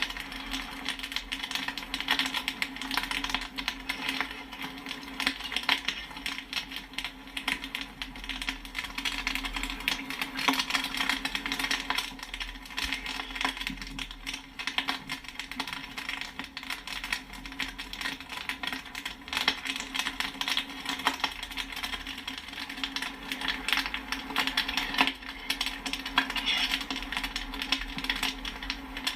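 Popcorn kernels popping in quick succession, a dense, continuous run of sharp pops and pings, over a steady low hum.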